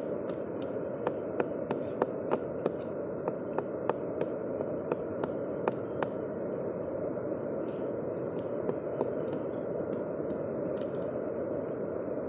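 Sharp clicking taps of a hard stone or tool knocking at sisi (small rock oysters) on a rock to chip them off, about three a second for some five seconds, then twice more a few seconds later. A steady rushing noise runs underneath.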